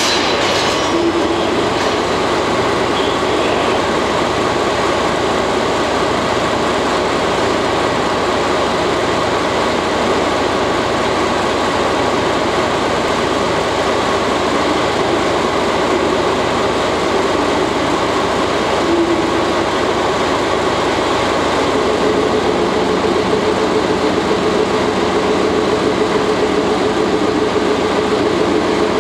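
A DE10 diesel-hydraulic locomotive idling beside the coupled train: a steady, continuous engine hum. About two-thirds of the way through, a higher steady tone comes in and holds.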